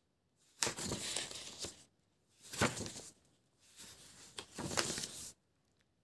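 Paper pages of a spiral-bound sketchbook rustling as they are turned by hand, in three bursts of crinkling, the last the longest.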